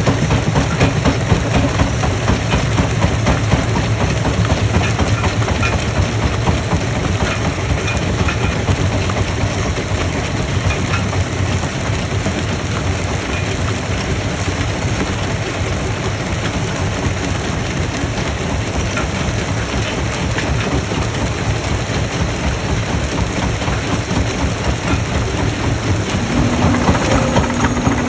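Stone crushing machinery running: a heavy engine and a continuous dense rattle and clatter of rock being crushed. About two seconds before the end, a steady low hum comes in over it.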